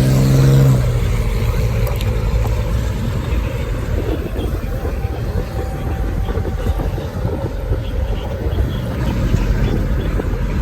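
A car driving off: an engine note in the first second, then a steady low rumble of road and wind noise.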